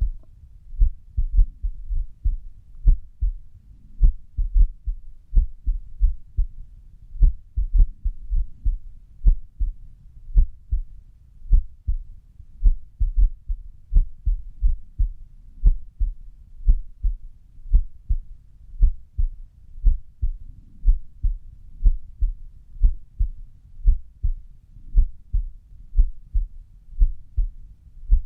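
Human heartbeat at rest, a steady series of low lub-dub thumps in an irregular rhythm: the gaps between beats are uneven, the sign of an arrhythmia.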